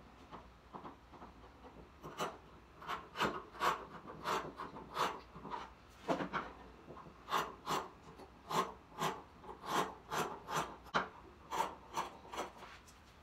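Fabric scissors cutting through black cloth on a wooden table: a run of short, crisp snips, roughly two or three a second, starting about two seconds in.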